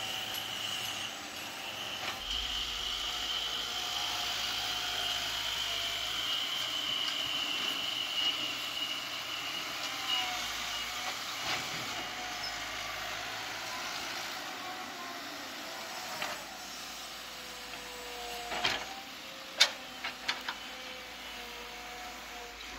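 Caterpillar 312B hydraulic excavator's diesel engine running under load as it digs and swings. A few sharp knocks come close together near the end, the loudest about twenty seconds in.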